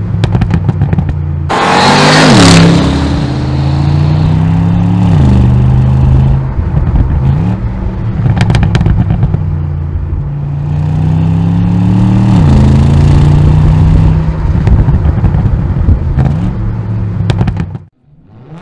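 Bentley V8 S's 4.0-litre twin-turbo V8 accelerating under load, its pitch climbing and then dropping sharply at each of three upshifts. There are a few sharp crackles from the exhaust.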